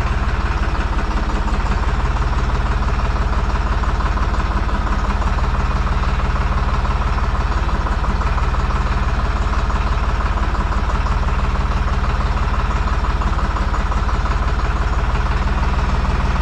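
Deutz-Fahr 55F tractor's diesel engine idling steadily when warm, at a freshly raised idle speed that has settled at the correct mark.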